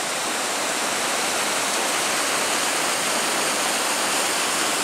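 Nysa Kłodzka river in flood, swollen by heavy rain, pouring over a weir: a steady, loud rush of white water.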